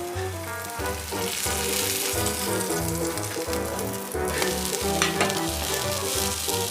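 Background music with a moving bass line, over a crackling, hissing noise that swells from about a second and a half in, with a few sharp cracks around four to five seconds in.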